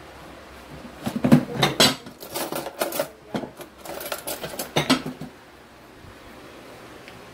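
Dishes and utensils clattering: a quick run of clinks and knocks starts about a second in and stops a few seconds later.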